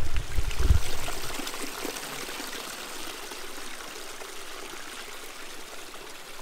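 Small creek trickling and splashing steadily over rocks and branches, with a few low bumps in the first second.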